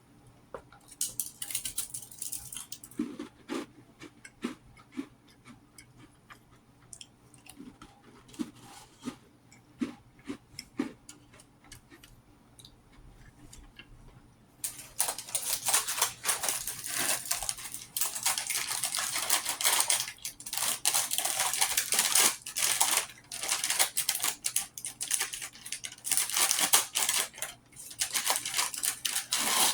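Close-miked snack eating. For the first half there are soft, scattered mouth clicks and smacks. From about halfway there is a dense, louder run of crisp crackling.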